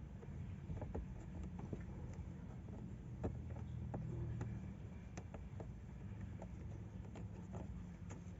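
Small irregular clicks and taps of hands fiddling with plastic parts while trying to fit a fuse into a car fuse box, over a low steady hum.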